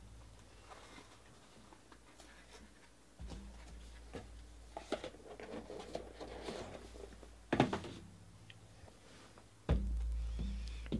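Cardboard trading-card box and card being handled: rustling and small clicks, with one louder knock a bit past halfway.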